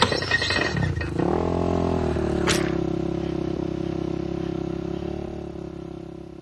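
Clattering knocks, then a vehicle engine that picks up briefly and settles into a steady run, with one sharp click partway through. It fades out near the end.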